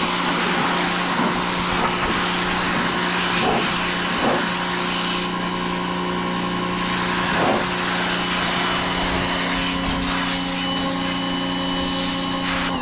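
Greenworks 1600 PSI electric pressure washer running steadily, its motor humming under the hiss of the water jet.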